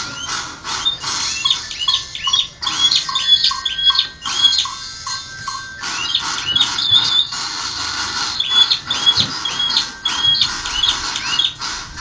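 Male domestic canary singing a long, unbroken song. It runs fast trills and sets of repeated whistled notes, some rising sharply and some lower and clipped, several a second.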